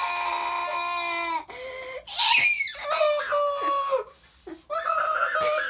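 A boy wailing in long, drawn-out mock sobs. A high shriek falls away about two seconds in, and there is a brief pause just after four seconds before the wailing resumes.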